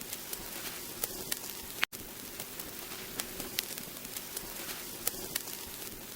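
Vinyl LP surface noise: a steady hiss with scattered crackles and pops at uneven intervals. The noise cuts out for an instant about two seconds in.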